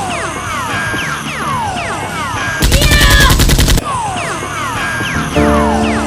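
A rapid burst of dubbed-in automatic gunfire, a little before halfway. Before and after it come repeated falling whistle tones, and steady music chords come in near the end.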